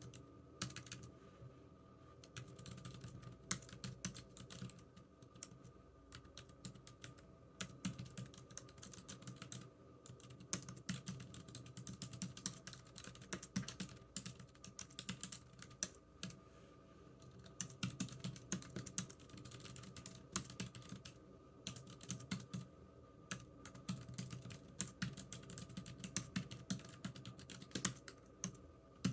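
Computer keyboard being typed on in runs of rapid keystrokes, with short pauses between the runs.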